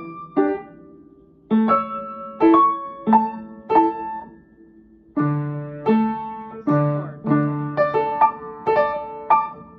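Upright acoustic piano played four hands as a duet: struck chords with a short lull about a second in, then from about halfway through a fuller low bass joins chords repeating about twice a second.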